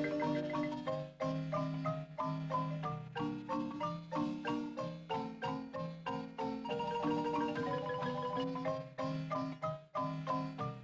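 Marimba music: mallets strike a quick melody over a bass line, with held notes played as rapid rolls.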